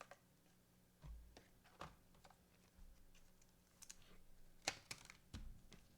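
Faint, scattered clicks and taps, with a couple of dull low knocks about a second in and near the end, over a faint steady low hum.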